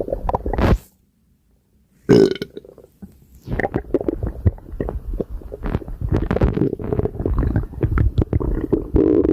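Stomach gurgling and rumbling as it digests a light breakfast, cut off by a pause of about a second. About two seconds in there is one short, loud burp, followed by steady bubbling gurgles with many small pops.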